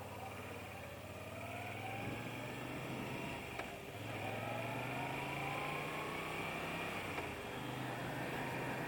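Moto Guzzi motorcycle's V-twin engine running as the bike rides, rising in pitch as it accelerates. The engine note breaks and picks up again about two, four and seven seconds in, like gear changes.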